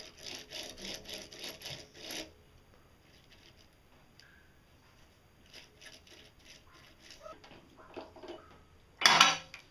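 Small metal lathe's three-jaw chuck and gears rattling at about four clicks a second, stopping about two seconds in; after a quiet spell come light metallic clicks as a chuck key works the chuck, and a loud, short sound near the end.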